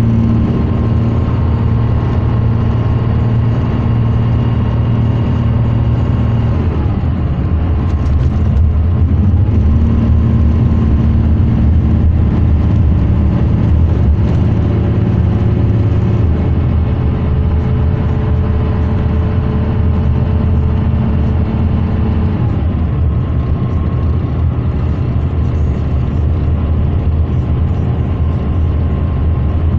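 Cummins diesel engine of a 2010 MCI D4500 highway coach running under way, heard from inside the passenger cabin as a steady drone over road and tyre noise. The engine note shifts in pitch about a fifth of the way in and again about three-quarters through.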